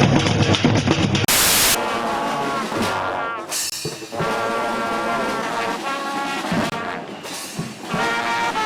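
A drum kit playing for about a second, cut off by a short burst of hiss, then a horn playing a run of pitched notes, some held and some short, with a brief pause partway through.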